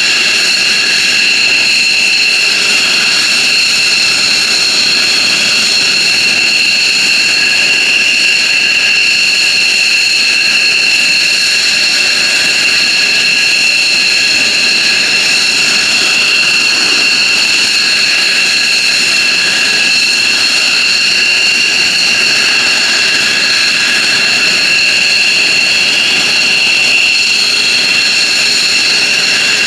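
F-15J Eagle fighter's jet engines running steadily on the ground: a loud, unchanging whine of several high tones over a rushing hiss.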